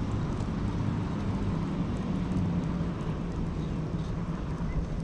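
Steady low outdoor rumble, with a faint hum that dips slightly in pitch about halfway through.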